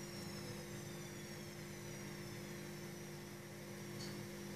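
Steady low background hum with faint high tones that slowly fall in pitch.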